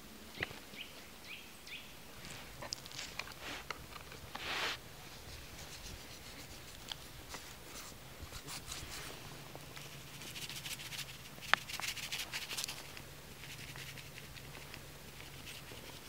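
Hands seasoning salmon steaks on a wooden cutting board: light rustling, sprinkling and rubbing, with scattered small clicks and taps and one sharp click a little past the middle.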